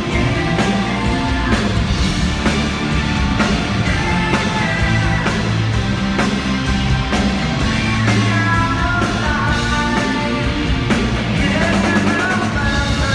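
Rock music with a drum kit and guitar, and a voice singing over it later on.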